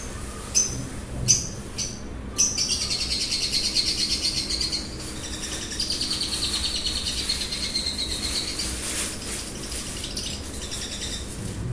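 Lovebirds calling: a few short, sharp chirps, then from about two seconds in a long, rapid chattering twitter that runs for several seconds and tails off into weaker calls near the end.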